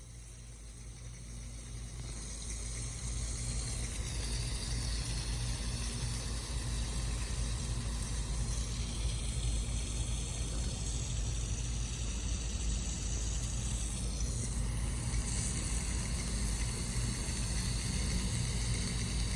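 Water spraying from a vintage Rain-O-Matic No. 10 ball-drive rotary sprinkler: a steady hiss over a low rumble, growing louder over the first few seconds and then holding.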